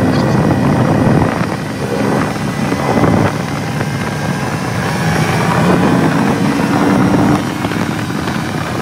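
Honda Pioneer UTV engine running under way with road and wind noise, a steady low drone whose loudness eases off a little a few times.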